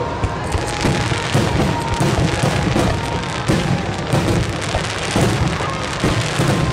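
A dense barrage of aerial firework shells bursting, with booms and crackling overlapping many times a second.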